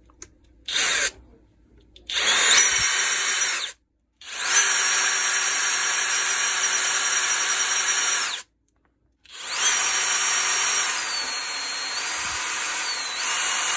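Brushless motor of a DeWalt DCH333 cordless rotary hammer, run bare out of its housing on its own switch and controller. It gives a short blip, then three runs of a high whine, each spinning up quickly; in the last run the pitch steps down and back up as the trigger speed changes. At high speed the motor shakes, which the repairer puts down to a bad contact or some fault.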